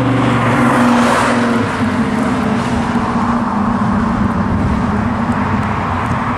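1966 Chevy II Nova pro street car's engine running as the car drives by and pulls away. A steady engine note gives way after about a second and a half to a choppy low exhaust rumble.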